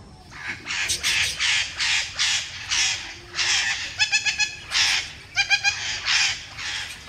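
A flock of budgerigars calling: a quick series of short, harsh squawks, two to three a second, broken by a few bursts of short pitched chirps about four and five and a half seconds in.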